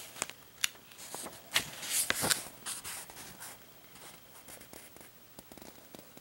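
Paper pages of a small instruction booklet rustling as they are turned and the booklet is pressed open, a run of crisp rustles and clicks for the first three seconds or so, then faint handling rustles.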